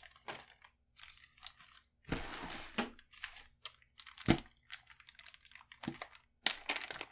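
Clear resealable plastic bags crinkling as hands handle them and pull one open, in short irregular crackles with a sharper, louder crackle a little after the middle.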